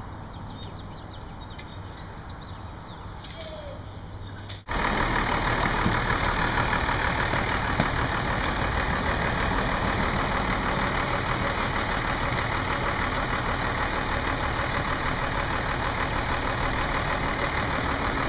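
Quieter steady street sound for about four and a half seconds, then, suddenly louder, a Blue Bird bus's engine idling steadily.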